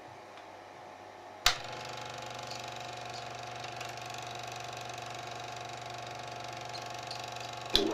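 Revue Lux Sound 550 Super 8 sound projector (built by Eumig) switched on with a sharp click about a second and a half in, its motor and film transport then running with a steady mechanical hum. A second sharp click comes just before the end as its control is switched again.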